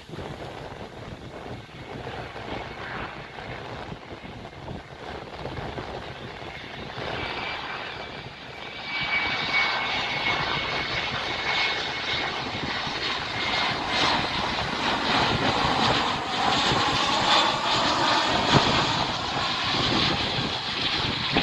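Jet airliner's engines, a rushing noise with a faint high whine, growing clearly louder about nine seconds in as the aircraft approaches. Wind on the microphone.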